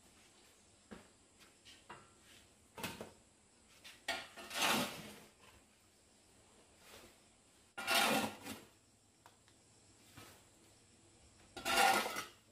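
Metal shovel blade scraping across a concrete floor, scooping up ash and charcoal, in three main strokes of about a second each, with smaller knocks and clicks between.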